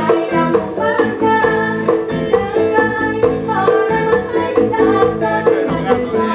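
A woman singing a Thai luk thung song into a microphone over backing music with a steady beat.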